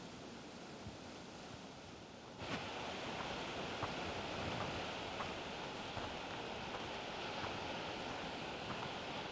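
Outdoor wind ambience: a soft steady hush, then about two and a half seconds in a sudden change to a louder, brighter steady hiss with faint scattered ticks.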